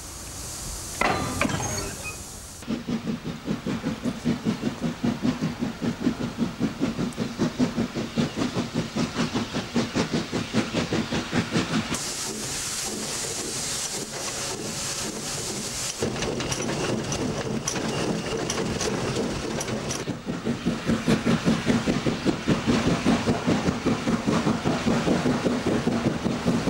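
Austerity saddle tank steam locomotive working a train, its exhaust beats coming about twice a second, with a few seconds of steady steam hiss partway through.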